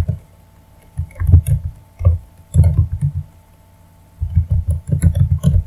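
Typing on a computer keyboard in about four short bursts of keystrokes with pauses between them, the longest burst near the end.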